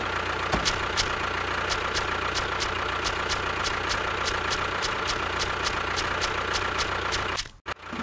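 Small motor of a homemade mini tractor running steadily, with a regular tick about three times a second. The sound breaks off abruptly just before the end.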